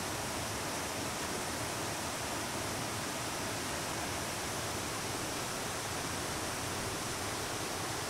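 Shallow stream flowing over rocks: a steady, even rush of water.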